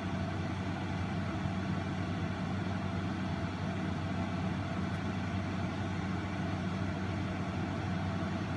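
Steady low mechanical hum over an even background noise, unchanging throughout.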